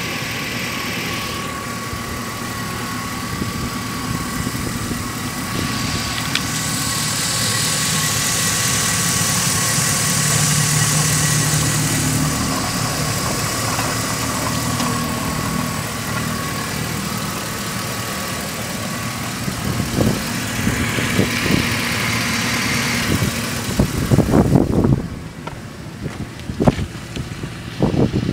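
GM 4.8-litre Vortec V8 idling steadily, with a thin steady whine over it. Near the end it drops away quieter, and a few sharp knocks and clicks come through.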